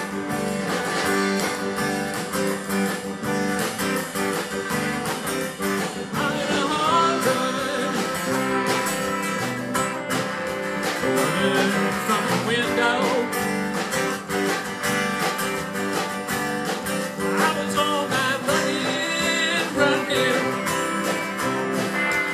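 Band music with guitars and drums keeping a steady beat, and some singing.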